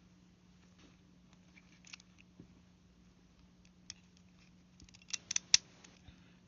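Hand tools and cable being handled: scattered faint ticks, then a quick run of sharp clicks about five seconds in.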